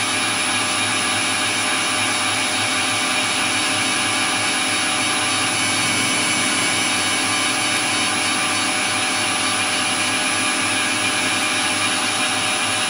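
Metal lathe running steadily while taking a facing cut across the end of a threaded bar: an even mechanical drone with several steady tones from the motor and gearing, unchanging throughout.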